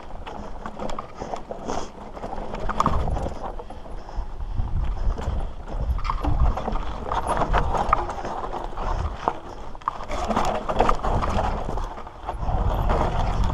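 Mountain bike riding down over bare rock and loose stones: tyres crunching on gravel and the bike clattering and knocking irregularly over the bumps, with a low rumble throughout.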